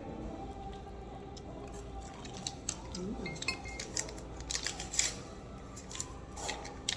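Sharp clicks and clinks of tableware during a meal: utensils and dishes knocking, in a quick, uneven flurry through the second half.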